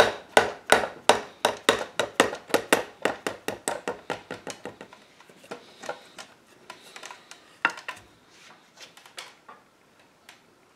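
A mallet hammering a wooden chair arm beside a glued joint to knock the joint apart, about three blows a second. The blows grow weaker after about three seconds and give way to a few lighter, scattered taps, then stop near the end.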